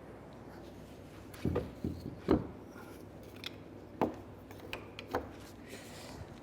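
A series of wooden knocks and thuds as the door and wooden wedges are handled, the loudest about two seconds in, with a few lighter clicks between.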